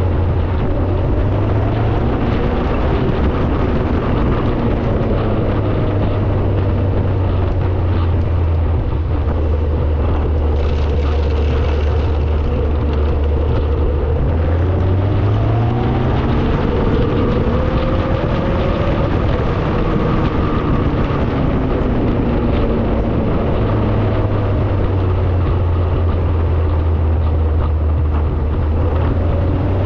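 Car engine running under way, with road noise. The engine note rises and falls several times as the speed changes.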